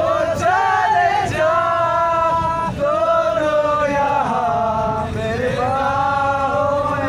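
A group of young men singing together in unison inside a bus cabin, loud, in held notes of about a second each that rise and fall from phrase to phrase.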